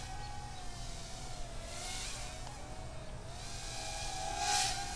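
XINLIN X162 micro quadcopter's motors and propellers whining in flight, the pitch wavering up and down with the throttle and steering. A hissing swell rises about two seconds in and a louder one about four and a half seconds in.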